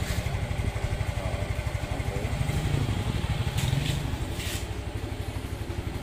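Yamaha Mio i 125S scooter's single-cylinder 125 cc four-stroke engine idling with a steady, even beat. Two brief scuffing sounds come around the middle.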